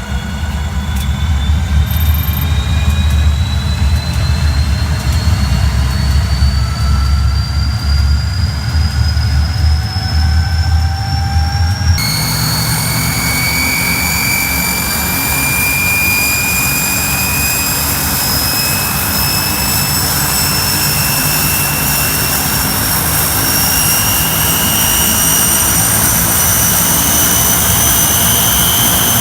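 Engine running with a heavy low rumble and a thin whine slowly climbing in pitch. About twelve seconds in it cuts to another engine: a rushing noise with whines that keep rising slowly, as when a turbine spools up.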